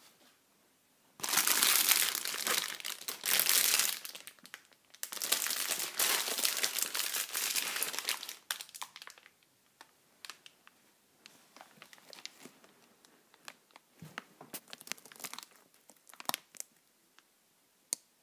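Plastic being crumpled and rustled in two long crinkling bursts, then scattered faint clicks and rustles.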